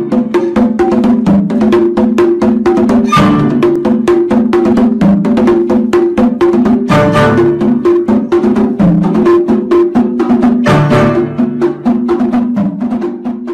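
Background music: a quick, even run of short struck percussive notes over a steady pitched tune.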